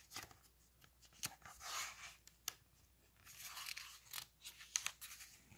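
A page of a large hardcover picture book being turned by hand: faint rustling and crinkling of the paper in a few soft patches, with a few sharp ticks.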